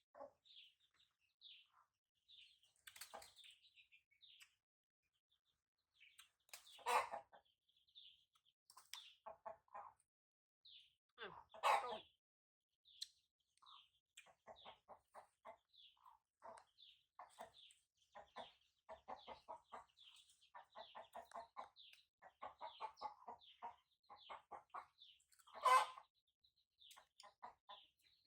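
Chickens: chicks peeping in short high chirps, and clucking in quick runs of pulses, broken by a few louder harsh calls.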